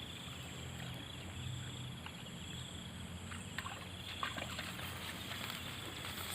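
Faint outdoor ambience: a steady high insect drone, with a faint low hum and a few soft ticks underneath.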